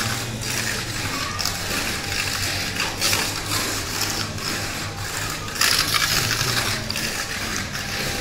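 Tamiya Mini 4WD car on an MS-L chassis lapping a plastic multi-lane race track: its small electric motor and gears whirring under a continuous rattling clatter against the track, growing louder as it passes close, about three seconds in and again for about a second near six seconds.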